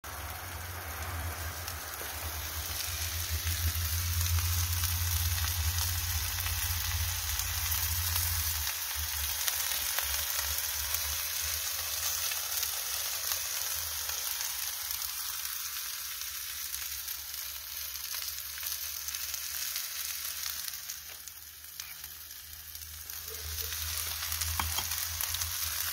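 Chicken and onions sizzling on a hot marble slab over charcoal embers: a steady frying hiss, with a low rumble underneath for roughly the first nine seconds and a brief softening about 21 seconds in.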